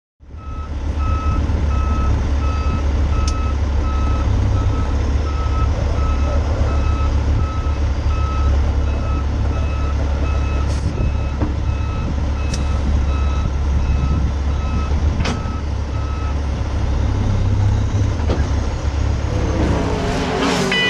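A semi-truck's diesel engine rumbles at low speed while a reversing alarm beeps steadily, about once a second. The beeping stops a few seconds before the end.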